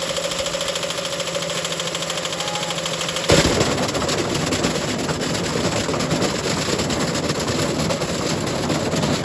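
Candy washing machine spinning with a London brick loose in the drum: a fast, continuous clattering and banging over the motor's hum. A sharp bang about three seconds in, after which the rattling gets rougher and louder as the drum grinds the brick and throws chunks of it out.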